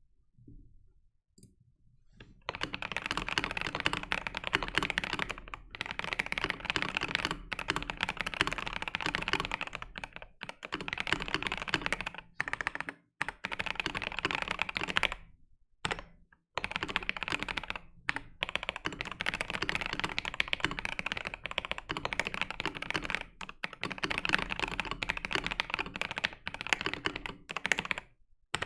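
Mechanical keyboard with factory-lubed NovelKeys Silk Black linear switches in a RAMA Kara case, typed on continuously, starting about two seconds in. The typing comes in runs of a few seconds broken by brief pauses, with a clacky rather than thocky sound.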